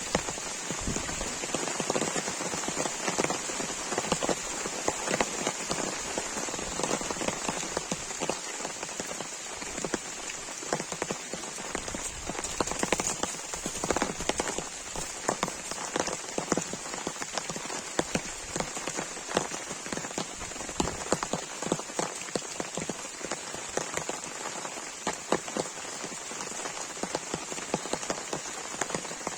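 Heavy rain falling steadily, with many sharp individual drop strikes on a surface.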